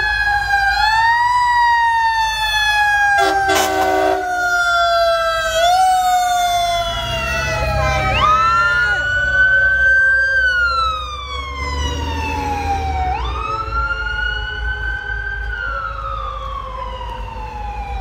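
Several fire apparatus and police sirens wailing at once, their tones rising and falling slowly and overlapping, with the low rumble of the passing fire trucks' engines. A short horn blast sounds about three seconds in.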